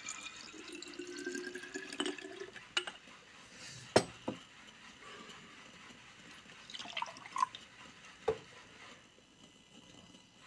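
Liquid poured from a plastic cup into a glass jar, the gurgle rising in pitch as the jar fills over the first couple of seconds. Then a few sharp knocks and clinks as the jar and cup are handled, the loudest about four seconds in.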